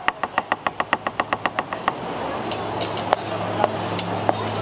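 Rapid, even chopping strokes, about six a second, typical of a metal spatula cutting roti on a flat griddle; they stop about two seconds in. A few scattered clinks follow over a low steady hum.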